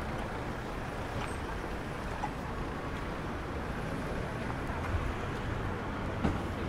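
Steady city street ambience: a continuous hum of road traffic.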